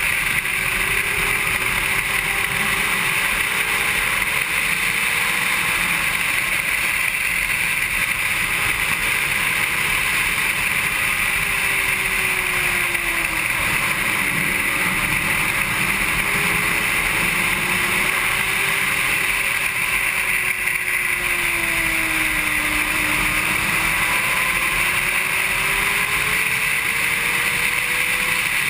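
Wind rushing over the camera at speed on a Honda CBR600RR sport bike, with the bike's inline-four engine faintly underneath, its note rising and falling as it accelerates and slows through corners.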